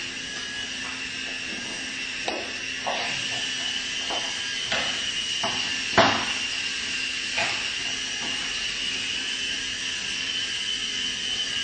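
Mini coaxial RC helicopter's small electric motors whining steadily in flight. A series of sharp knocks sounds over it, the loudest about six seconds in.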